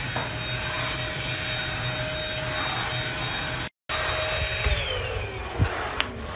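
Corded stick vacuum cleaner's motor running with a steady whine, then winding down in a falling glide about five seconds in as it is unplugged at the wall socket. Two short clicks follow near the end.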